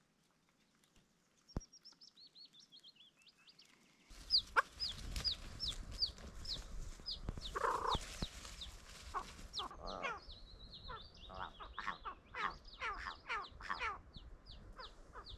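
Wild birds calling: series of high, thin, down-slurred notes repeated a few times a second, joined after about four seconds by lower, rougher calls in quick runs, over a low rumble.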